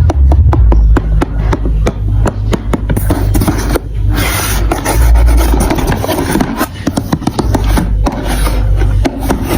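Marbles rolling down a plastic building-block marble run: a continuous rolling rumble with rapid clicks as they hit the track pieces, the clicks thickest in the first few seconds.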